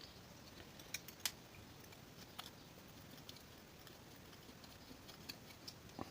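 Faint, scattered light clicks and ticks of small metal parts being handled as the two screws of a scooter carburettor's float-chamber cover are undone and the cover is lifted off, the sharpest clicks about a second in and just before the end.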